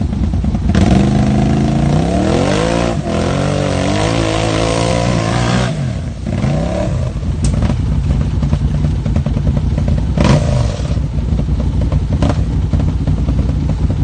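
Arctic Cat 1000cc side-by-side UTV's engine revving hard under load as it climbs a steep muddy gully, the pitch rising and falling from about a second in until nearly six seconds. It then settles to a lower, steadier run, with three sharp knocks in the second half.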